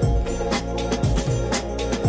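Background music: sustained keyboard chords over a steady beat of about two strokes a second.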